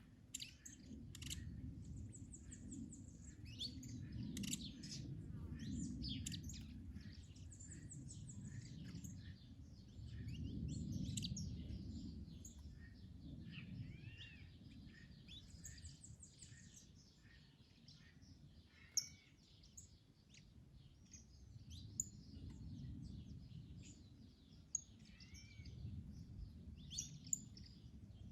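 Several small songbirds chirping and trilling in overlapping calls, with gusts of wind on the microphone as a low rumble that swells and fades. A few sharp ticks come in the second half.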